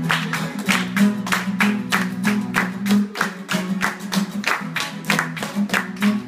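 Acoustic guitar strummed in a steady rhythm of about three strokes a second, chords only, without singing.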